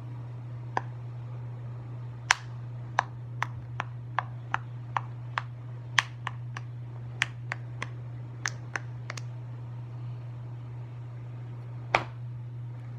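Irregular sharp clicks or taps, about twenty, coming in a run through the first nine seconds with one louder click near the end, over a steady low hum.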